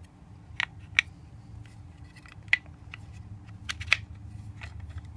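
A Kel-Tec RFB's bolt carrier and bolt being handled and turned over in the hands: a handful of sharp, irregularly spaced metal clicks, with two in quick succession later on, over a faint steady hum.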